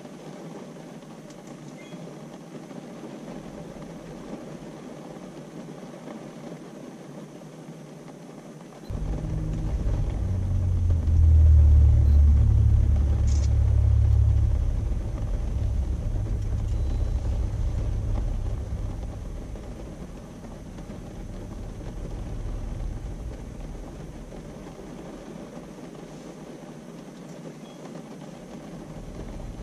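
Steady noise inside a moving car in heavy rain. About nine seconds in, a heavy low rumble starts abruptly, lasts about ten seconds and then fades.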